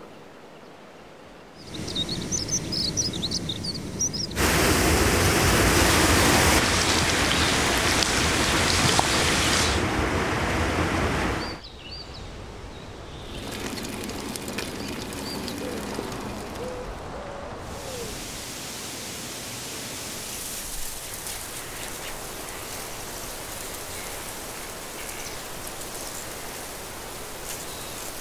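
Outdoor nature sounds in several cut-together stretches: birds chirping over a hiss, then a louder, even rushing noise for about seven seconds that cuts off suddenly, then a few more chirps and a steadier, quieter hiss.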